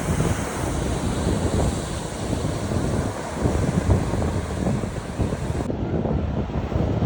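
Strong wind buffeting the microphone over the steady wash of sea waves on a beach.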